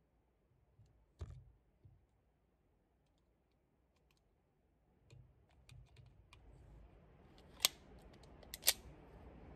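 Small clicks and a few sharp metallic clacks from a Sig Sauer P365 X-Macro pistol being handled between shots. Two louder clacks come near the end, about a second apart.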